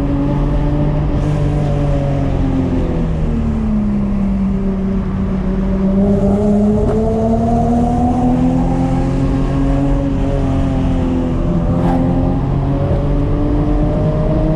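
Lexus SC300's 2JZ inline-six engine running through new headers and exhaust, its note sinking and rising smoothly as the revs change.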